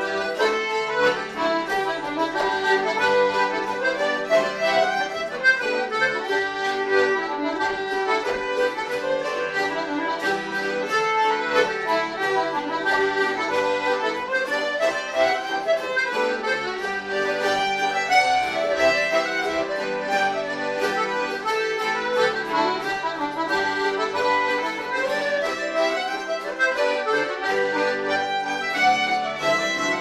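Live traditional folk tune played by a small instrumental group: a busy melody over a steady held low note.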